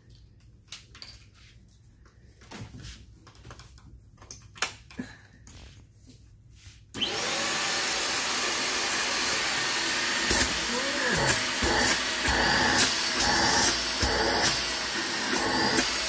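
A few small handling clicks, then about seven seconds in a corded mini stick vacuum cleaner switches on suddenly and runs steadily at full suction. Several sharp knocks sound over the running motor as it is handled.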